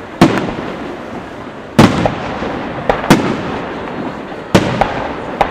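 Firework shells bursting overhead: four loud booms about a second and a half apart, each with a smaller bang close after it, over a steady rumble of crackle and echo.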